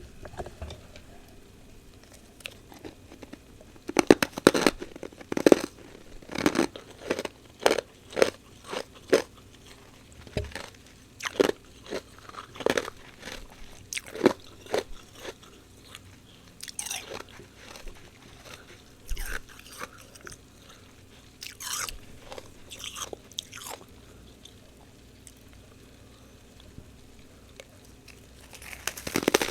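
Close-miked crunching of fresh humidifier frost being bitten and chewed: a quick run of sharp crunches for several seconds, then sparser, crisper ones, and one loud crunch near the end.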